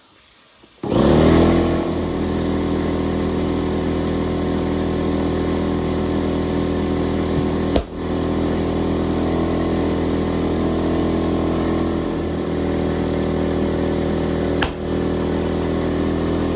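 Craftsman electric tire inflator starts about a second in and runs steadily. Two sharp pops, about seven seconds apart, are the tire's beads snapping onto the rim under air pressure, the front bead first, then the back.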